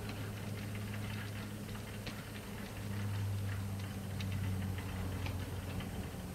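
Model railway Lowmac wagons and a brake van rolling slowly along the track, their wheels giving small irregular clicks over the rail joints, over a steady low hum.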